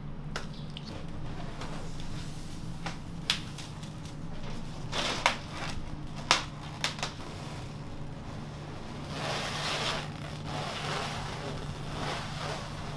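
Clear plastic film crinkling and rustling as it is wrapped around a raw chicken shawarma cone, heaviest about nine to ten seconds in, with a few sharp knocks from handling the cone. A steady low hum runs underneath.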